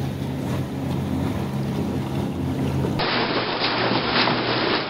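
Pontoon boat's Mercury outboard motor running at a steady cruise, a low even hum under wind and water noise. About three seconds in, the sound cuts abruptly to louder rushing water and wind on the microphone, with the motor hum fainter beneath.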